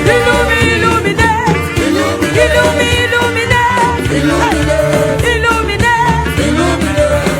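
Gospel worship music: a gliding melodic vocal line over bass and band accompaniment, with no clear words.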